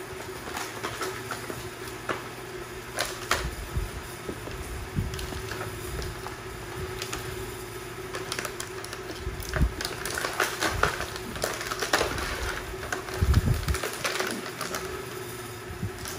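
Puppies playing over toys: scuffling, claws and paws on a hard floor, toys rustling, and short high squeaks, over a steady low hum. A dull low thump comes near the end.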